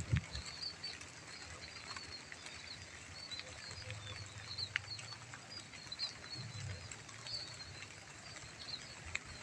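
Rice-paddy ambience in light drizzle: a steady soft hiss with scattered drop ticks, and short high chirps repeating throughout. A couple of brief low rumbles come near the start and about two-thirds of the way through.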